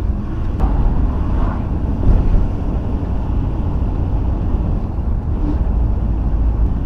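Cabin noise of a VW T4 campervan driving along a country lane: a steady low rumble of engine and road noise with wind buffeting, heard from inside the cab.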